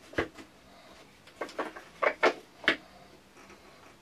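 Sharp wooden knocks and clunks as a homemade wooden sharpening-stone holder and its stone are handled against a table: one knock near the start, then a quick run of about five, the loudest around the middle.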